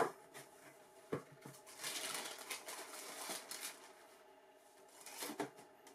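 Cardboard shoebox knocked down onto a wooden table and its lid lifted off, then tissue paper crackling and rustling for a couple of seconds as a shoe is pulled out, with a last short rustle and knock near the end.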